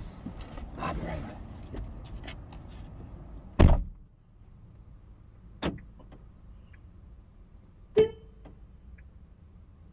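Rustling and movement inside a parked car, then a car door shut with a loud thump about three and a half seconds in, heard from inside the cabin. Two fainter sharp clicks follow, the second with a brief tone.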